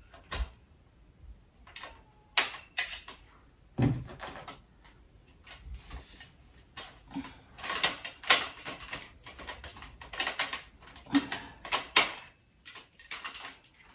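Metal tubes and hardware of a garment rack being handled and tightened by hand: irregular clicks, taps and clinks, busiest in the second half, with a heavier knock about four seconds in.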